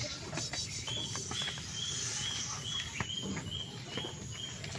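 An animal calling: short high chirps repeated evenly about twice a second, starting about a second in, with a few faint knocks underneath.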